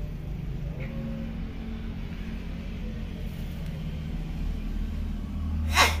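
Low steady rumble of a vehicle engine running, growing a little louder toward the end. A short, loud, sharp cry cuts in just at the close.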